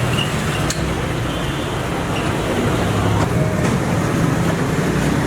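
Steady low rumble of background noise like passing road traffic, with a few faint light clicks.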